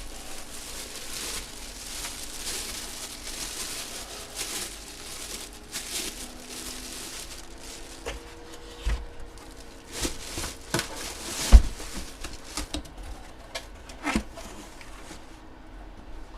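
Crinkling and rustling of plastic and card stock as trading cards are handled, with scattered clicks and taps and one sharp knock about two-thirds of the way through.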